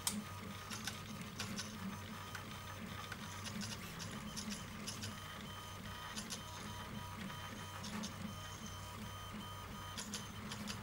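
Guaifi 3D printer running a print: its stepper motors whine in steady tones that change pitch as the print head moves back and forth, over a pulsing hum, with scattered clicks.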